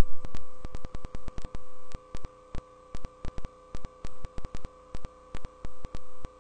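Live-stream audio breaking up: the voice cuts off, then a steady buzzing tone switches on and off in irregular short blocks, with a click at each switch, over a hiss.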